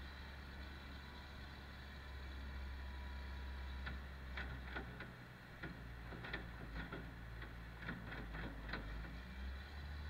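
Diesel engine of a John Deere wheel loader running steadily as it tips a bucket of chopped forage into a mixer wagon, with a run of sharp knocks and clicks between about four and nine seconds in.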